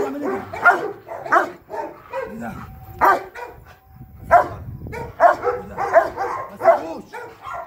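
Large black dog barking repeatedly in short, quick barks, with a brief pause about four seconds in. This is a guard dog being agitated during protection training.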